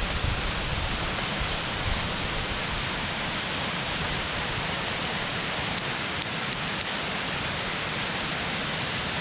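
Waterfall rushing steadily. About six seconds in, four light, sharp clicks come roughly three a second.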